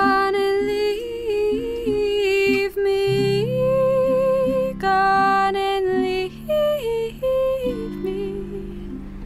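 A woman's voice singing a wordless melody, long held notes with vibrato, over strummed acoustic guitar chords, in a live solo acoustic folk song.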